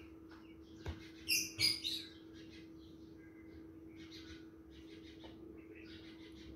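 A metal spatula stirs and scrapes fried onions and ginger-garlic paste in an aluminium pot, with a click just before a second in and a few sharp, high scrapes soon after. Fainter high chirping sounds follow over a steady low hum.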